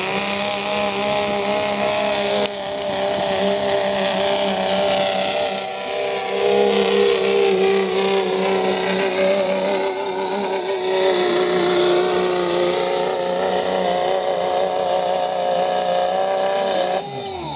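Diesel engine of a Dodge Ram pickup held at full throttle under heavy load, dragging a weight-transfer pulling sled. The engine note holds high and steady, then falls away near the end as the pull ends.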